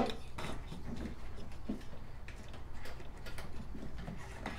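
Light clicks and scrapes of a camera video wire being hooked onto a metal coat-hanger fish and worked through a rubber grommet, with one sharp click at the very start and scattered small clicks after it.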